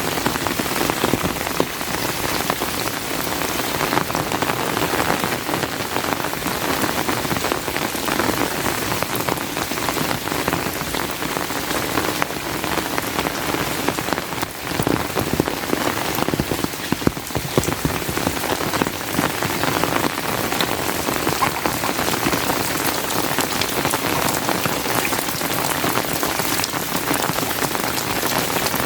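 Steady rain falling, with many close drop impacts throughout.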